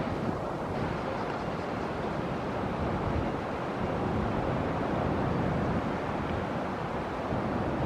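Steady, even rumble of wind on the microphone mixed with the wash of sea water, with no distinct engine tone.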